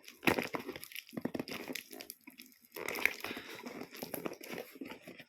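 Packaging being crinkled and torn open by hand: irregular crackling, rustling and tearing with many small sharp crackles.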